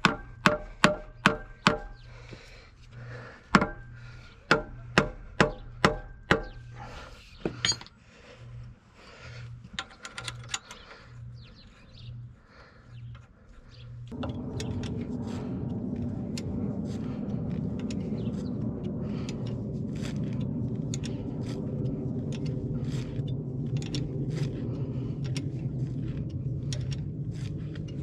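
Small sledgehammer tapping an alternator into its mount on a diesel engine: quick runs of sharp metal taps, about three a second, in the first several seconds, then scattered fainter knocks. About halfway through a steady rushing noise sets in and continues.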